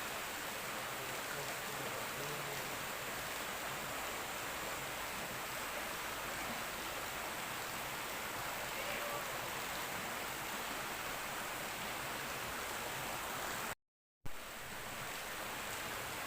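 River water flowing steadily over rocks, an even rushing wash, broken by a half-second dropout about 14 s in.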